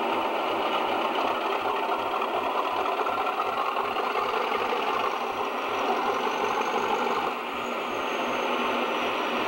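English Electric V16 diesel engine of a British Rail Class 50 locomotive running steadily as the locomotive passes close by, dipping briefly in level about seven seconds in.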